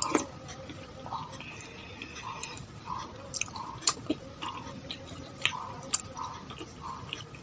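Close-miked chewing and mouth sounds while eating es pisang ijo, a soft banana dessert, with a chewing stroke about every half second to second and sharp clicks here and there.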